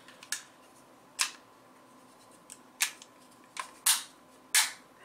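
3D-printed plastic phone case being snapped onto a Nokia Lumia 920: about six sharp plastic clicks spread irregularly as its edges are pressed into place around the phone.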